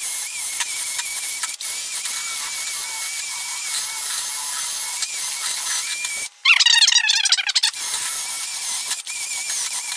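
Handheld rotary tool with a small wire brush, running at a steady high-pitched whine while scrubbing rust and dirt off a steel tractor PTO clutch. The tool cuts out briefly about six seconds in, then comes back louder with a wavering squeal for about a second as the brush bites the metal, before settling into its steady whine again.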